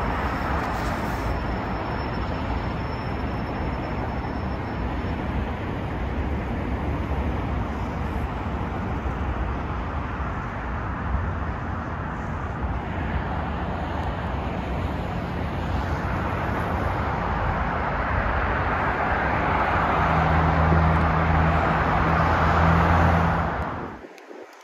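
Road traffic noise: a steady rush of passing cars, with a louder vehicle engine humming close by about twenty seconds in. The sound drops away suddenly near the end.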